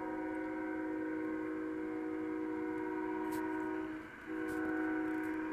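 Union Pacific locomotive's Nathan K5HL five-chime air horn sounding a sustained chord. It breaks off briefly about four seconds in and then blows again. It is heard through a live webcam feed played on computer speakers.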